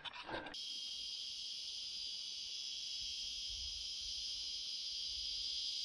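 Steady, high-pitched chorus of insects, cutting in abruptly about half a second in and holding even throughout.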